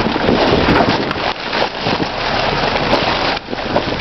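Plastic garbage bags rustling and crinkling loudly as they are pulled about and torn open close to the microphone.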